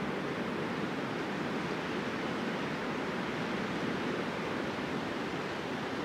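Steady, even rush of flowing river water, with no distinct sounds standing out.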